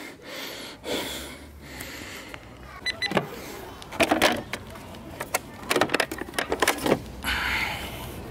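Plastic clicks and knocks from an EGO LM1903E-SP 56V battery lawn mower as its battery-compartment lid is opened and the battery pack is unlatched and pulled out, in several short clusters of sharp clicks.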